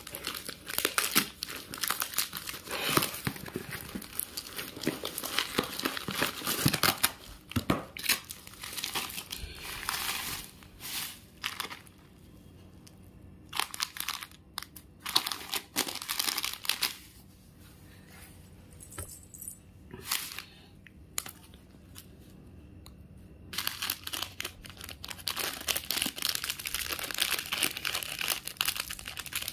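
Plastic wrapping and packing tape torn and crumpled by hand as a parcel is unwrapped. The crinkling comes in dense spells, thinning through the middle to scattered crackles with short quiet gaps.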